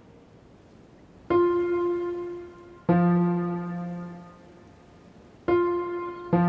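Piano playing a descending octave: a note, then the same note an octave lower about a second and a half later, each struck once and left to ring and fade. The upper note sounds again near the end, starting the next pair.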